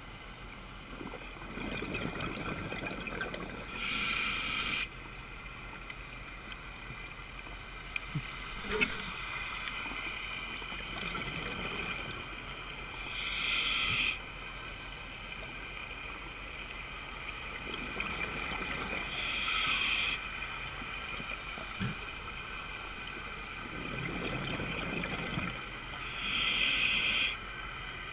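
Scuba diver breathing through an open-circuit regulator underwater: a slow, even breathing cycle with a loud rush of breath and bubbles four times, about every seven seconds.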